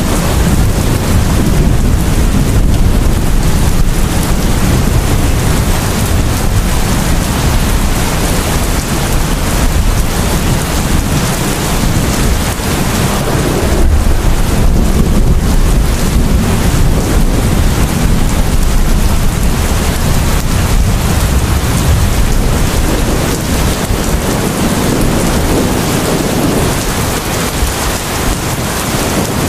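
Heavy rain pouring steadily, with a deep, continuous low rumble of a thunderstorm underneath.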